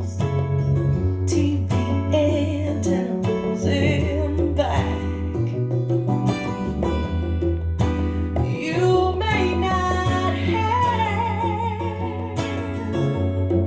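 A pop song with a singing voice, guitar, a steady bass line and a regular beat, played back through a hi-fi system driven by a Yamaha MX-1000U stereo power amplifier.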